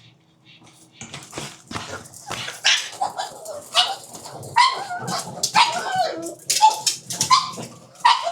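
Pugs barking in a rapid run of short bursts, starting about a second in.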